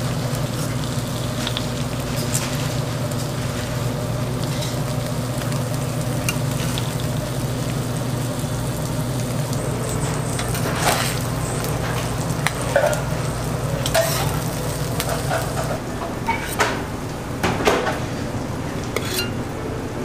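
Eggs and beef patties sizzling on a steel flat-top griddle, with clicks and scrapes of metal tongs and a spatula against the plate, most of them in the second half. A steady low hum runs underneath.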